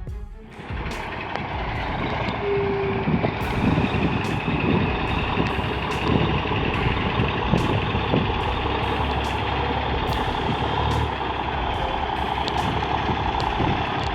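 Heavy logging truck running and maneuvering, a steady engine and truck noise.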